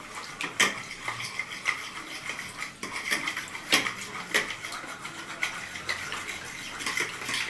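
A utensil beating egg and salted water in a bowl. It clicks against the bowl's sides in a steady rhythm, roughly one to two strokes a second, with a light splashing between strokes.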